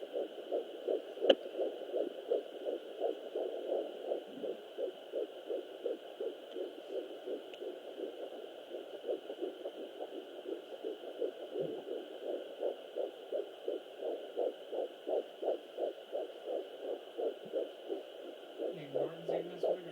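Sonoline B handheld fetal Doppler picking up an 11-week fetus's heartbeat: a fast, even pulsing beat at about three beats a second. A single sharp click comes about a second in.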